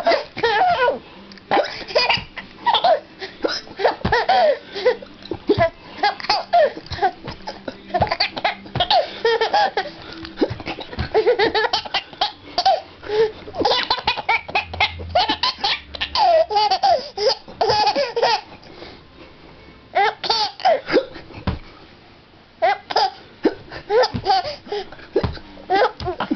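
A baby laughing hard in repeated fits of belly laughter, set off by an adult's pretend hiccups, with a short lull about two-thirds of the way through.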